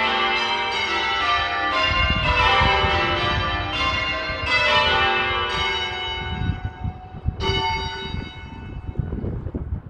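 Church bells in a glass-walled bell tower ringing, one strike after another with long ringing overtones. The strikes come about every half second at first, then space out and fade, the last one about seven and a half seconds in.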